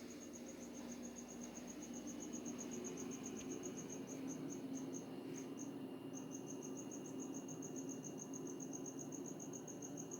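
An insect singing at night: a fast, even train of high-pitched pulses, about seven a second, with a short break about halfway through, over a steady low hum.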